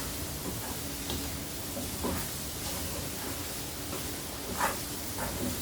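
Grated coconut, spice powder and palm candy sautéing in sesame oil in a pan: a steady sizzling hiss, with a few brief scrapes of the stirring spoon.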